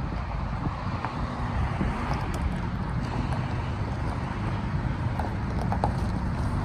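Truck engine running steadily at low revs, with wind buffeting the microphone.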